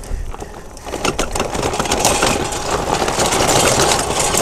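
Electric hub-motor pedal quad driving off over gravel: a steady mechanical running noise full of crackling, swelling about a second in.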